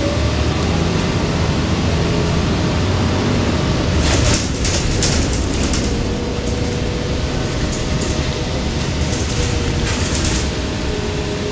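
Interior of a 2020 Gillig BRT 40-foot transit bus under way: steady engine and road rumble with a faint whine, and bursts of rattling clatter about four seconds in and again near the end.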